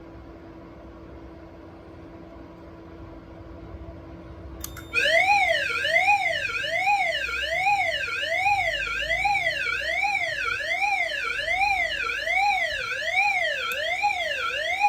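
Fire alarm voice-evacuation speaker sounding a loud siren tone that sweeps steadily up and down about one and a half times a second. It starts about five seconds in, after a faint steady hum, and is the alert signal for an activated suppression release system.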